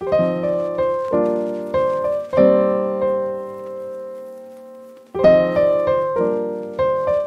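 Background solo piano music: slow, struck broken chords, with one chord left ringing and fading for about two seconds before the playing resumes.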